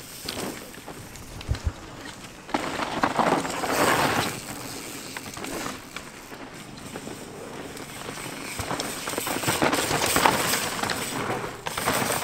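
Downhill mountain bikes passing on a loose dirt and gravel track: tyres crunching and skidding over the dirt, swelling louder a few times as riders go by, with a couple of short knocks early on.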